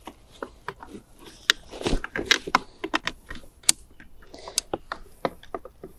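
Irregular sharp clicks and light knocks as a fabric storage basket is pushed and snapped onto the rear frame of a plastic stroller wagon.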